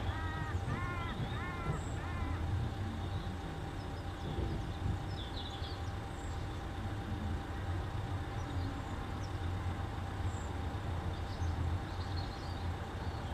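Outdoor background with a steady low rumble, over which a bird gives four quick calls in the first two and a half seconds, followed later by a few faint, high chirps.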